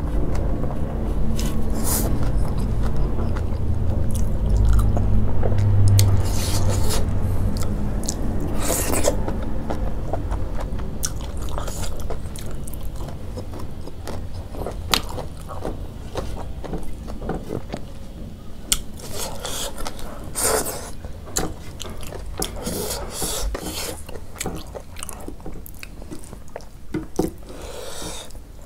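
Close-up chewing of a large mouthful of rice, with wet mouth sounds, loudest for about the first ten seconds and then fading. Fingers mix and scrape rice on a metal plate, with scattered small clicks and rustling scrapes.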